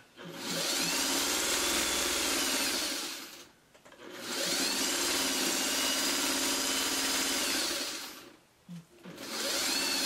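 Electric sewing machine stitching a seam in three runs with short pauses between, its motor whine rising as it speeds up and falling as it slows within each run.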